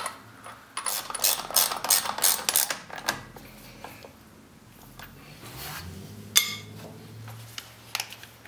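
Socket ratchet being worked on the primary clutch bolt of an ATV, with irregular clicks and metal-on-metal clatter during the first few seconds. A low steady hum comes in about halfway through.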